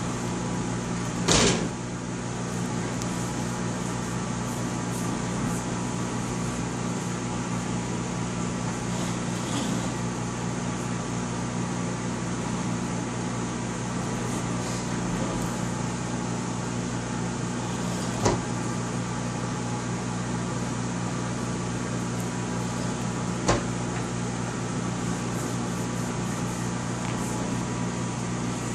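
A steady electrical hum from a running appliance, with three sharp knocks: one about a second in and two more later, as the plastic baby walker bumps into things.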